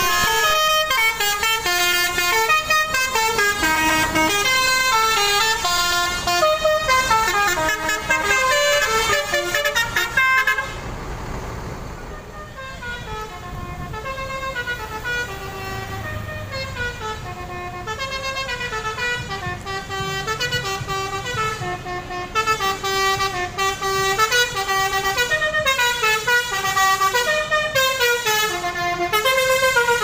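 Indonesian telolet bus horns playing melodies, many quick stepped notes one after another. Loud for the first ten seconds or so, quieter after that, and loud again near the end.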